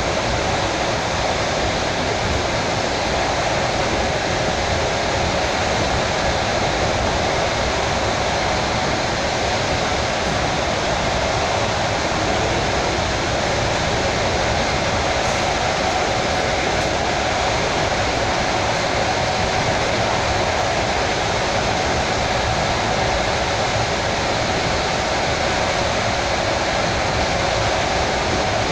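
Steady running noise of a suburban electric train (elektrichka) at speed, heard inside the carriage.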